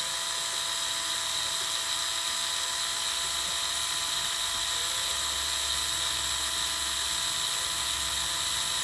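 Topshak TS-ESD1 4 V cordless screwdriver running free at full speed with no load, a steady high-pitched motor and gearbox whine; the spindle turns at about 220 RPM.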